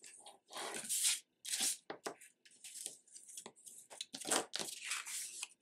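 A bone folder rubbed along the fold of cardstock to burnish the crease: a run of short, uneven scraping swishes.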